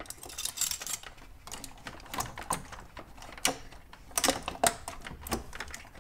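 Irregular clicks, taps and rubbing of plastic and rubber as a turbo charge pipe and its rubber coupler are pushed and worked into place by hand.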